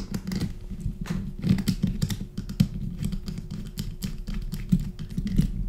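Small screwdriver turning small screws into a PCB holder jig's frame, an irregular run of light clicks and scrapes with handling knocks; the screws go in easily in well-machined holes.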